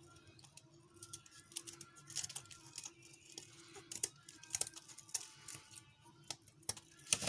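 Scissors snipping and the shells of frozen mantis shrimp crackling as they are cut and peeled, in scattered small clicks and crackles.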